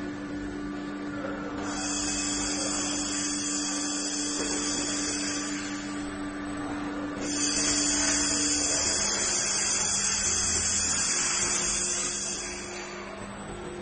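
Robotic fiber laser welding: a high hiss comes on for about four seconds, stops, then runs again for about five seconds, over a steady low machine hum.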